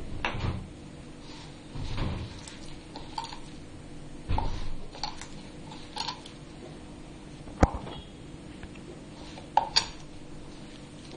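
Hand kneading wheat flour dough in a bowl: several dull thumps as the fist presses the dough against the bowl, then a few sharp clinks against the bowl in the second half. A faint steady hum runs underneath.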